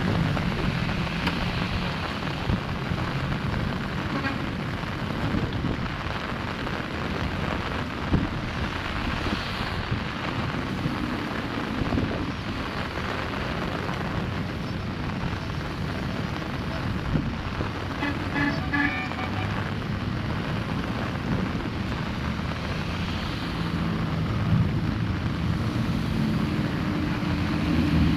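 Steady rushing noise of water and rain at a clogged culvert drain, with a motor vehicle's engine running low at the start and again near the end.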